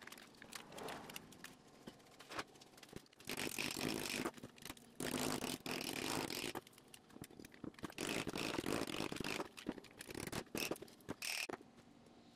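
Thin metal foil being folded, crinkled and rubbed flat against a workbench, in several rough scraping bursts of a second or two, with a few light clicks between them.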